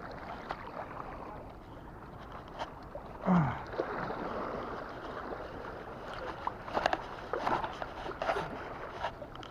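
Sea water washing and surging over a rocky shore as a steady rushing noise, with scattered sharp clicks and knocks in the second half.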